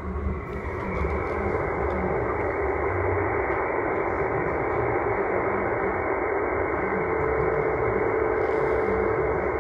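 Icom IC-705 transceiver receiving on 20-metre single sideband with no station tuned in: a steady hiss of band noise from its speaker while the dial is turned across the band. Near the end a faint low steady tone comes in for about two seconds.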